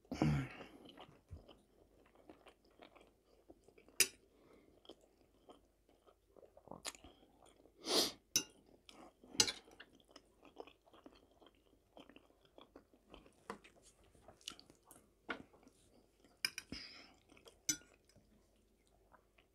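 Close-up chewing of a mouthful of food, with scattered short clicks and clinks of a fork against the plate every few seconds.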